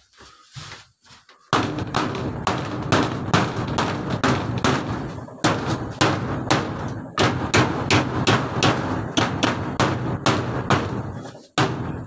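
A hammer drives nails into a plywood wall panel. A few light taps come first, then steady hard blows about three a second start about a second and a half in. The thin wall booms between strikes, with short breaks about five and a half and eleven and a half seconds in.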